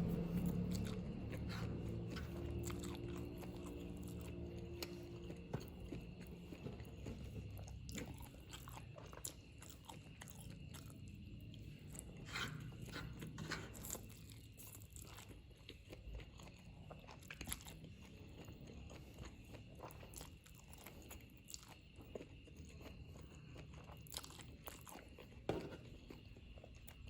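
Close-up mouth sounds of a person eating spicy Korean fried noodles: chewing and biting with many small wet clicks and crunches, irregular throughout.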